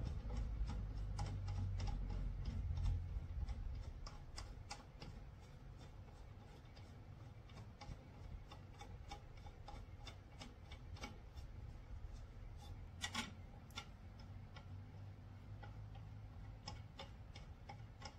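Light, irregular clicking and ticking as fingers work a small plastic foot cap onto the tip of a wooden table leg. There is a low handling rumble in the first few seconds and a louder cluster of clicks past the middle.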